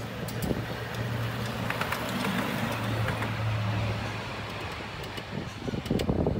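A miniature railway locomotive passing: a steady low hum that swells and fades, with scattered light clicks.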